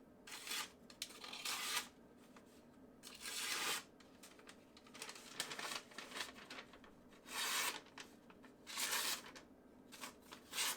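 Parkside folding pocket knife's stainless steel blade slicing through a sheet of paper in about six short strokes, each a brief papery rustle. The blade cuts cleanly, sharp from the factory.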